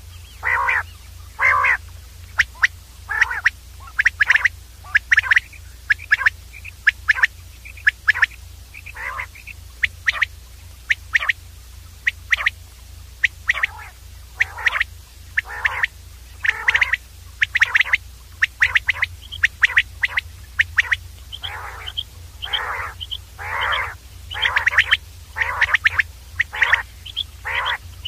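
Common quail calling over and over: a dense run of short, sharp calls, roughly one to two a second, some longer and harsher than others. A steady low hum runs underneath.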